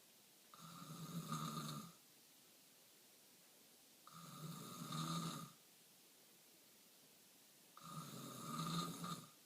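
A person snoring in sleep: three long snores about three and a half seconds apart, each building up louder before it stops.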